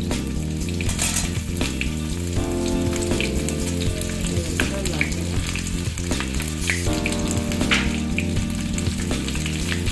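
Potatoes frying in hot mustard oil in a kadai: a steady sizzle, with scattered short sharp clicks of a spatula against the pan.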